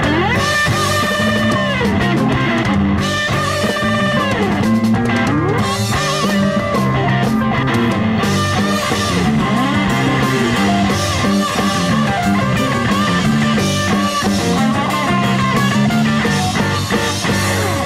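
Rock band playing live: a red hollow-body electric guitar plays a lead line full of bends and slides over a drum kit and the rest of the band. The music runs steady and loud.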